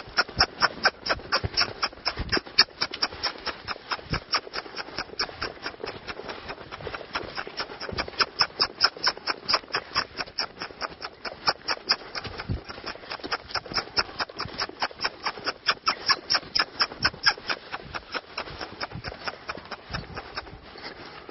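Saddled horse moving around a sand round pen on a long line: rapid, very regular hoof beats, about four or five a second, going on without a break.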